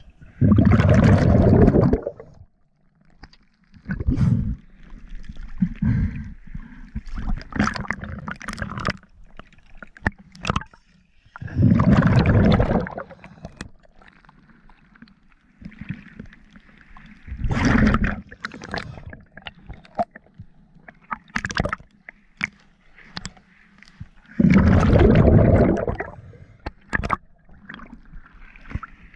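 Sea water sloshing and gurgling around the camera at the surface, broken by four loud rushing bursts several seconds apart.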